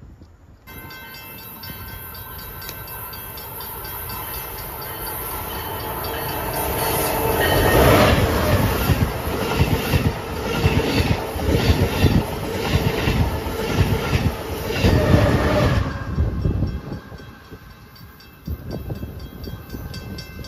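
Amtrak Acela high-speed trainset passing at speed: a rushing noise builds over about seven seconds as it approaches, then the cars go by loudly with a rhythmic clatter of wheels over the rail, and the sound drops off suddenly once the train is past.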